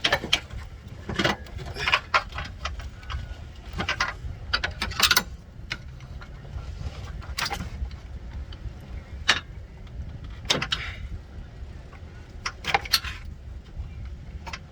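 Scattered metallic clinks and knocks from hand work on the parts of a car's engine bay, over a steady low rumble.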